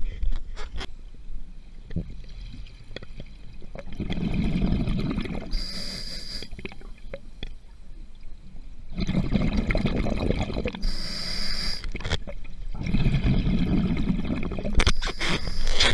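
A diver breathing through a scuba regulator underwater: a sharp hiss on each inhale and a bubbling rush of exhaust bubbles on each exhale, about three slow breaths.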